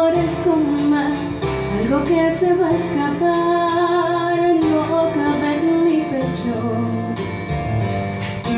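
Live music: a woman singing a melodic line over an accompaniment with a steady beat.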